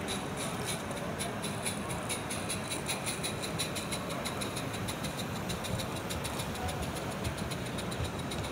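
A Gauge 1 model train, a small tank locomotive hauling coaches, running along the track with a quick, even beat of about three or four ticks a second, over the steady hum of an exhibition hall.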